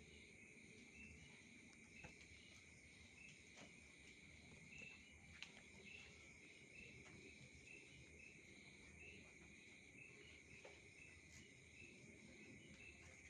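Faint chorus of night insects: a steady high-pitched trill with short chirps repeating over it about every three-quarters of a second.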